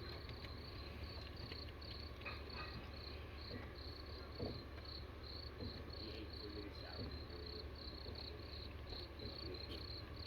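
A cricket chirping faintly and evenly, about three high chirps a second, over a low steady hum.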